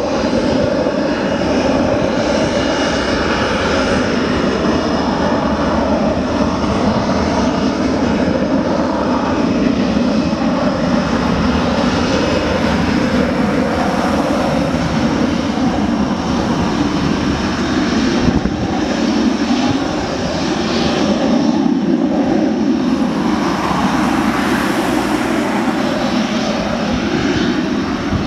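Panavia Tornado's twin RB199 turbofan engines running at taxi power as the jet taxis. A steady loud jet roar with a thin high turbine whine over it.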